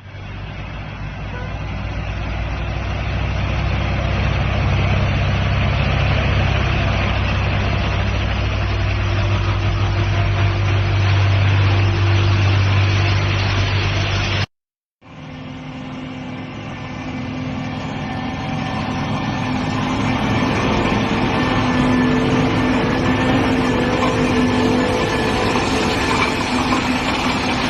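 Heavy diesel engine of a chip sealer truck running steadily, with a deep low hum. It cuts off briefly about halfway through and resumes with a somewhat higher-pitched tone, growing gradually louder each time.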